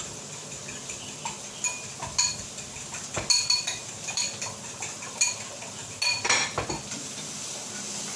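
Spoon beating eggs in a ceramic bowl, clinking repeatedly against the sides, with a louder cluster of clinks a little past six seconds in.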